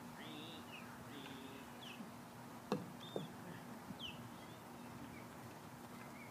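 Birds chirping faintly outdoors in short repeated calls, over a low steady hum, with a sharp knock about two and a half seconds in and a smaller one just after.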